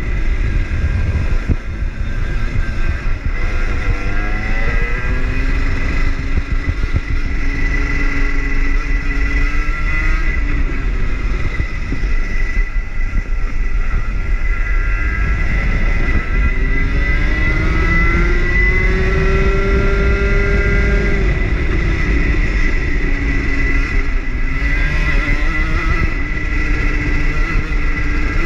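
Rotax hire kart engine heard onboard at racing speed, its note repeatedly climbing as it accelerates and dropping as it lifts for corners, with one long climb about two-thirds of the way through, over a heavy low rumble.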